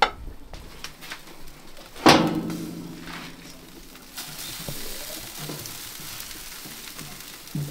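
A sharp metal clang about two seconds in, ringing on for a second or two. Then jerk chicken sizzling steadily on a grill.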